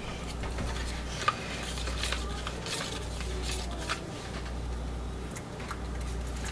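Light clicks and taps of plastic cups and a utensil being handled, a few scattered through, over a steady low hum.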